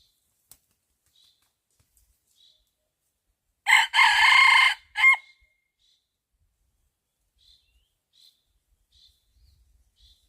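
A rooster crows once, loudly, about four seconds in, the call lasting about a second and a half and ending on a short final note.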